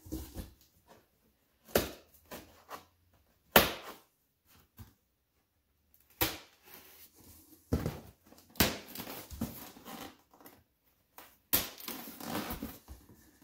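Folding pocket knife cutting along the edges of packaging inside a cardboard shipping box: separate sharp scrapes and knocks every second or two, then busier scraping and rustling over the last five seconds.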